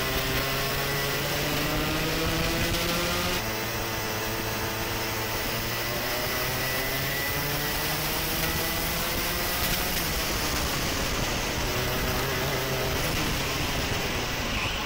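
Racing kart engines heard from onboard, the pitch climbing and dropping every second or two as the drivers accelerate and lift through corners. The engine sound changes abruptly a few times as it switches from one kart to another.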